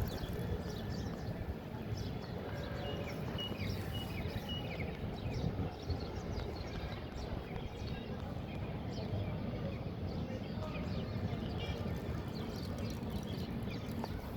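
Many small birds chirping, with short high calls scattered throughout over a steady low background rumble.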